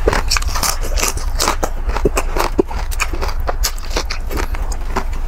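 Close-miked chewing and crunching of crispy deep-fried pork skin (crispy pata), with many irregular sharp crackles, over a steady low hum.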